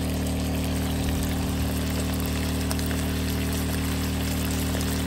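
Meat and sauce simmering and sizzling in an electric wok, a steady bubbling hiss with a constant low electrical hum underneath.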